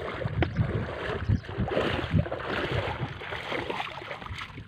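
Water splashing and sloshing as a man wades waist-deep and works a fishing net, dipping down into the pond, with irregular low thumps throughout.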